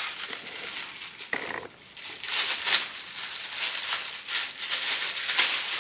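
Plastic packaging crinkling and rustling in repeated bursts as it is handled and unwrapped.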